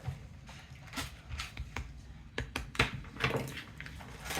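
Scattered light clicks, taps and rustles of items and packaging being handled.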